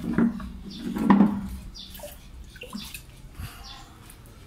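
Tap water running into a pot in a stainless steel sink, loudest about a second in and dying away by about two seconds; after that, quieter splashing and handling as the filled pot is carried.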